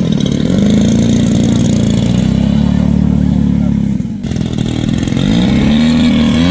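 Large RC model aircraft's engine running loud, its pitch dropping and climbing back as the throttle is worked: once just at the start and again about four seconds in.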